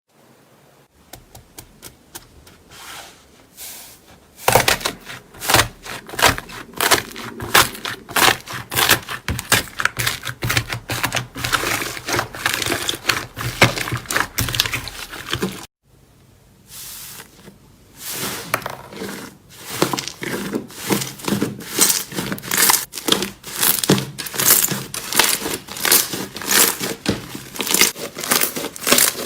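Slime being squished and pressed by hand, making dense, rapid sticky crackling and clicking. It is quiet at first, grows loud after a few seconds, breaks off briefly about halfway, then resumes.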